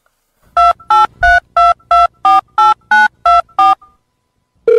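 Touch-tone phone keypad beeps: ten short two-note tones at about three a second, a phone number being dialled. A steady telephone tone comes in near the end.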